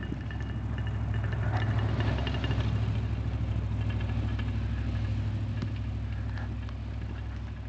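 A motor vehicle's engine running as it drives slowly past, growing louder over the first two or three seconds and then slowly fading away.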